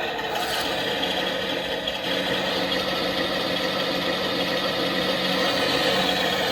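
Torro Tiger 1 RC tank's sound unit playing a steady simulated engine idle through its small built-in speaker.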